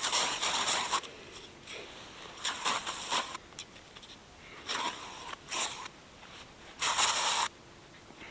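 Aerosol can of mosquito repellent spraying in about five short hissing bursts, each under a second.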